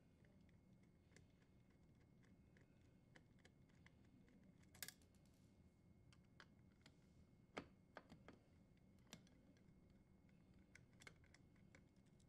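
Near silence with faint, scattered clicks and ticks of a Phillips screwdriver turning the screws on a dishwasher's wiring terminal block. The two clearest clicks come about five seconds in and about halfway through.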